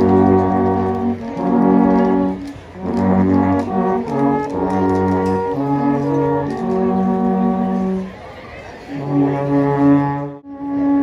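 An ensemble of Swiss alphorns playing a slow tune together in long held chords, phrase by phrase, with short pauses for breath between. The sound cuts out for a moment near the end.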